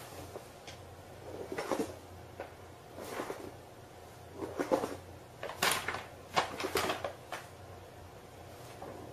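Paper shopping bag crinkling and scuffing on a hard floor as a cat inside it shifts and shuffles, in several short bursts of rustling with quiet gaps between them.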